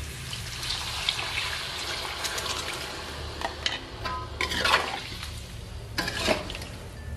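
Water poured from a plastic jug into a hot stainless-steel wok of fried tofu and eggs in cooked spice paste, with a steady wash of liquid and frying noise. In the second half a metal spatula stirs and scrapes the wok a few times.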